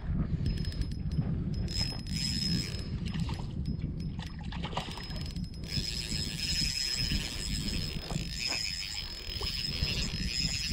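A hooked trout splashing at the water's surface while a Shimano 1000-series spinning reel is wound in, with runs of quick ticking from the reel in the first half.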